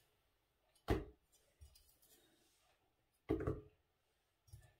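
Thuds and knocks of raw chicken chunks being dropped into a plastic blender jar, with a loud one about a second in and a longer cluster a little past three seconds; the blender motor is not running.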